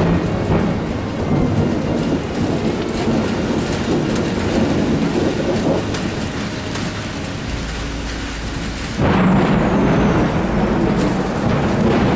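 Thunder rumbling over steady rain, the rumble easing off before a sudden, loud new peal of thunder breaks about nine seconds in and rolls on.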